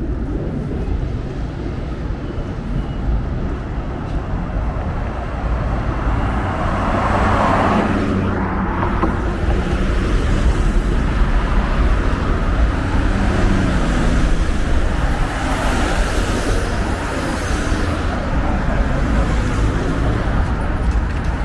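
City street traffic: cars passing by over a steady low rumble, one passing most strongly about seven to eight seconds in.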